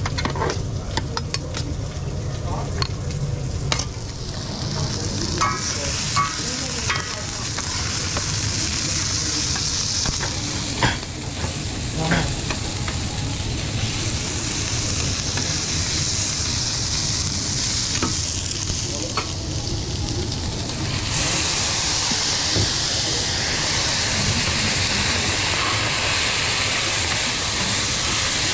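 Vegetables sizzling on a flat-top steel griddle while metal spatulas scrape and clack against the plate. The sizzle grows louder and fuller about three-quarters of the way through.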